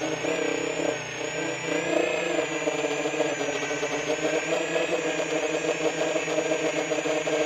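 Brushless motors and propellers of a 10-inch freestyle FPV quadcopter whining in flight, heard through the onboard camera's microphone. The several tones of the whine waver up and down with the throttle.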